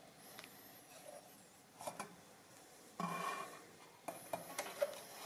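Quiet handling noise from the opened Add-O-Matic chain adding machine: a few faint clicks, a brief rubbing sound about three seconds in, then more small clicks.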